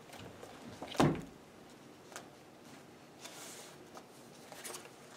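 A single sharp thud about a second in, then a short paper rustle and a few light clicks: a thick ring binder and papers being handled and set on the table.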